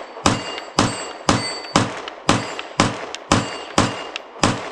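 Glock 45 9mm pistol fired in a steady string of nine shots, about two a second, each followed by the ring of a hit on a steel target. The pistol cycles 115-grain factory ammunition from a standard Glock magazine with no malfunction.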